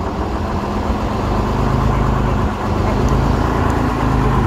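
1948 AEC Regal Mark III bus's diesel engine idling steadily.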